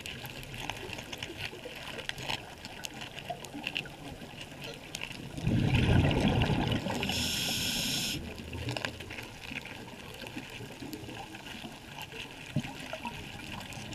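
Scuba regulator breathing heard underwater: a loud low burble of exhaled bubbles about five and a half seconds in, then a hiss of about a second as the diver inhales. Throughout, a steady faint crackle of small clicks.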